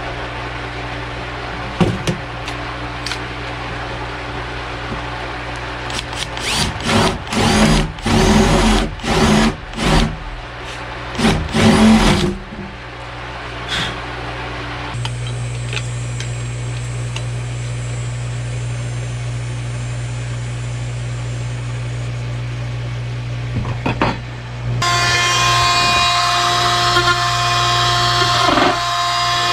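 Power tool running while it cuts a recess for a screen into a wooden desk top, with a run of loud cutting bursts between about 6 and 12 seconds in and a steadier, higher whine over the last few seconds.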